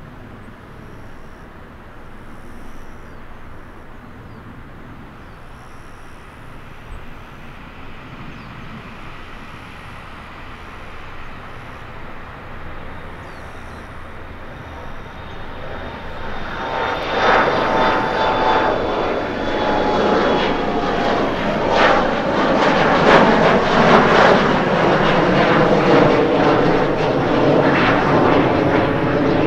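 Embraer E170 regional jet's twin turbofans at takeoff power: a faint distant rumble at first, swelling about halfway through into loud jet noise with a high whine as the climbing airliner passes overhead.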